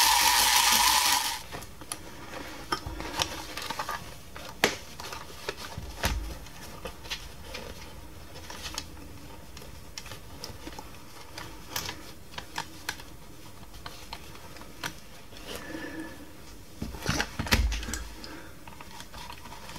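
A short harsh buzzing burst for about a second and a half at the start, then scattered clicks, taps and soft rustling from handling a plush toy as its fur cover is worked back over its plastic body.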